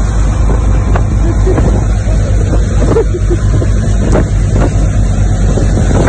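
Motorboat engine running steadily under way, with the rush of its wake and wind buffeting the microphone.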